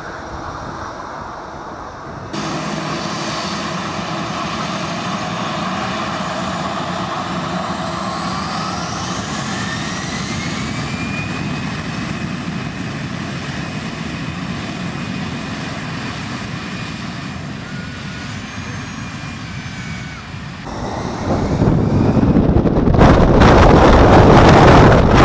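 Airbus A319-111's CFM56 jet engines whining at taxi power as the airliner turns on the runway, with a tone that glides upward about a third of the way through. Near the end the engines spool up to take-off thrust and the sound swells into a loud, rumbling roar.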